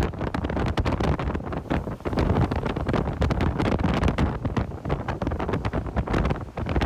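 Storm-force wind buffeting the microphone: a heavy rumble that rises and falls in constant gusts, with crackling as the blasts hit.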